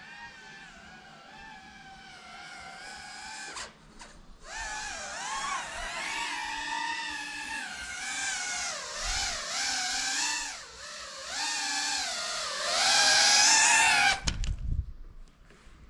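FPV quadcopter's brushless motors whining, the pitch rising and falling with the throttle. It grows loudest as the drone comes in close, then cuts off with a low thump near the end.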